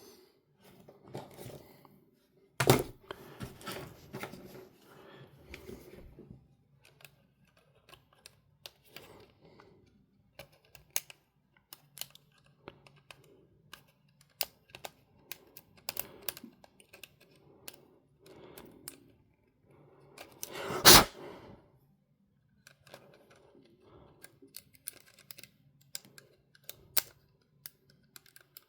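Light, irregular clicking and scratching of a pen-type tool working over a small portable MiniDisc player while corrosion is cleaned off it, with two louder knocks, one about three seconds in and one about two-thirds of the way through.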